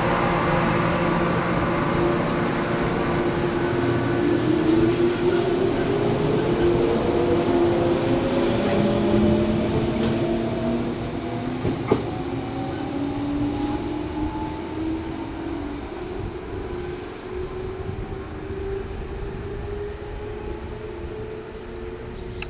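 A 419 series electric train pulling away and accelerating: its motor and gear whine rises steadily in pitch over the rumble of the wheels, then fades as the train recedes. There is one sharp click about halfway through.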